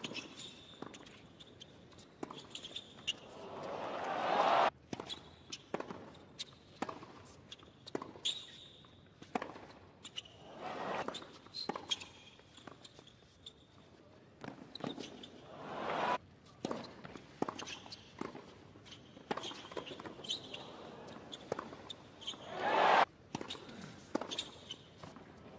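Tennis rally on a hard court: rackets strike the ball in sharp pops a second or so apart. Several times the crowd's cheering swells up after a point and cuts off suddenly.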